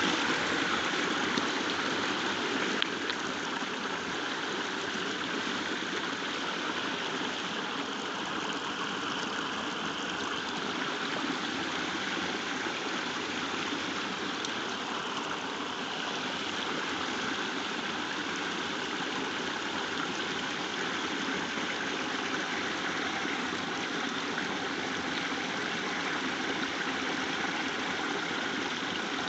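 Small waterfall and stream water rushing steadily.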